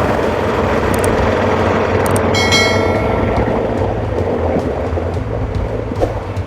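Motorcycle engine running steadily on the ride, a low drone under a haze of road and wind noise; likely the 2019 Honda Africa Twin's parallel twin. About two seconds in, a brief high metallic ringing sound fades out over a second.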